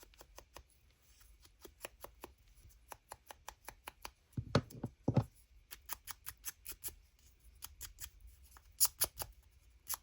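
Paper pieces and card being handled and moved on a tabletop: scattered light rustles, taps and clicks, with two louder soft knocks around the middle and a brief burst of crisp paper rustling near the end.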